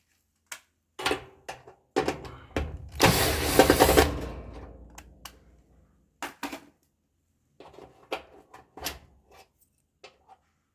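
Irregular clicks, knocks and clatter of hard objects. The loudest, densest stretch comes about three seconds in, and sparser clicks follow.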